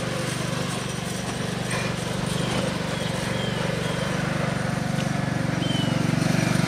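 Riding lawn mower engine running steadily, growing louder near the end as the mower comes closer.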